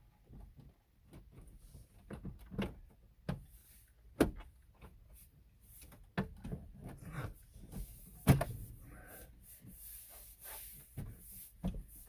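Irregular plastic clicks, knocks and rattles of truck dash trim being handled and pressed back into place, with two sharper knocks about four and eight seconds in.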